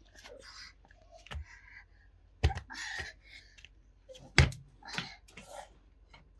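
Three sharp knocks: the first about a second and a half in, the next about two and a half seconds in, and the loudest about four and a half seconds in. Softer rustling handling noise runs between them.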